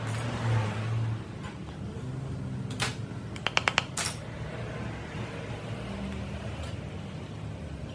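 Metal parts clinking: a couple of sharp clicks, then a quick run of about five ringing metallic taps in under half a second, and one more click, over a steady low hum.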